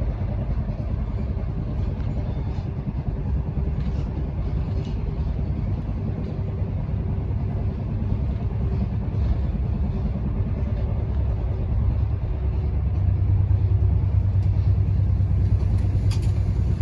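Passenger train running along the line, heard from inside the carriage: a steady low rumble of wheels on rail, growing a little louder in the last few seconds, with a short click near the end.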